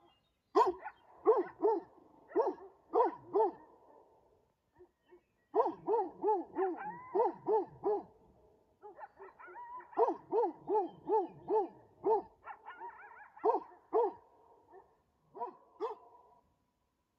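Livestock guardian dog barking over and over in runs of quick barks, about three a second, with short pauses between: alarm barking at coyotes to keep them away from the cow and calf.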